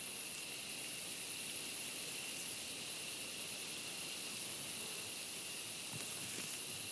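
Night insects chirring steadily: an even high hiss with two constant shrill tones running through it.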